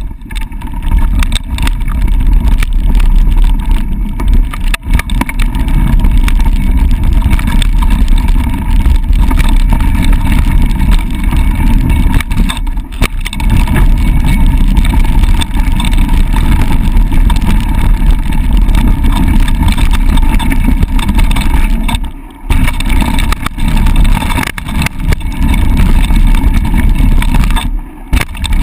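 Loud, steady wind rumble on an action camera's microphone during a fast mountain-bike descent, mixed with tyres rolling over loose gravel and scattered knocks from bumps. The rumble drops away briefly twice near the end.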